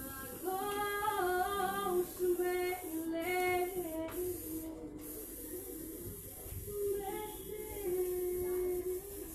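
A person singing a slow tune in held, stepping notes, with a short lull midway.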